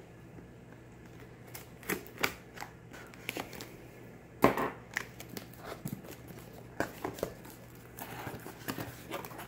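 Cardboard shipping box being opened by hand: a knife slitting the packing tape along the seam, then the flaps pulled back, making scattered scrapes, taps and crinkles. One sharper knock stands out about four and a half seconds in.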